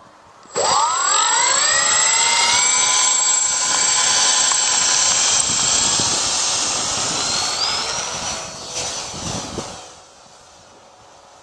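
Twin electric motors and propellers of a Dynam Cessna 310 radio-controlled model plane spooling up sharply to a high, steady whine. The whine holds for about seven seconds, wavers, then dies away shortly before the end.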